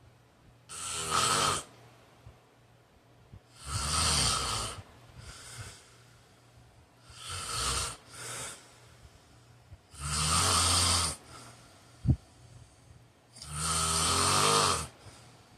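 A sleeping man snoring loudly, with five rough rasping snores about three seconds apart and a softer breath after some of them. A single sharp click sounds between two of the later snores.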